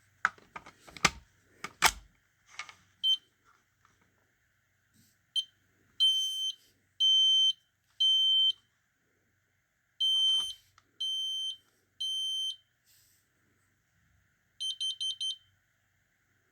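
A smoke alarm being handled with a few sharp clicks, then its piezo horn sounding a loud, high-pitched beep in the temporal-3 pattern: three beeps, a pause, three more. Near the end come four quick short beeps.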